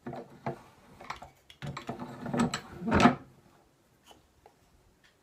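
Machinist's bench vise being adjusted by hand: a series of metal clicks, knocks and scrapes as the handle is worked and the clamped piece shifted, with the loudest knock about three seconds in.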